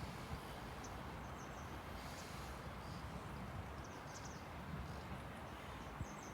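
Steady low outdoor background noise with faint, high bird chirps scattered through it.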